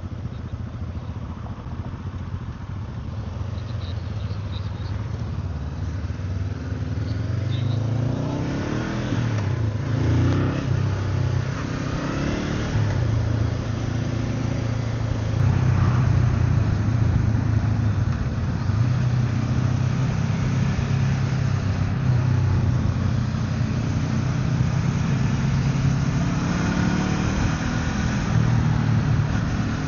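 Motorcycle engine pulling away and accelerating through the gears, its pitch climbing and dropping back at each shift, then cruising along over a rush of wind and road noise.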